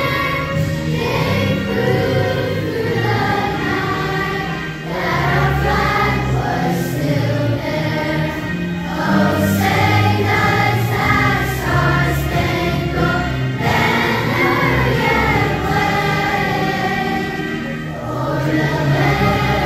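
A large choir of elementary schoolchildren singing together, with brief dips between phrases.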